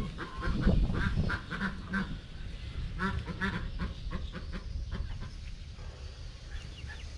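Several white domestic ducks quacking, a few quick calls at a time, thickest in the first three seconds or so and growing sparser and fainter after that.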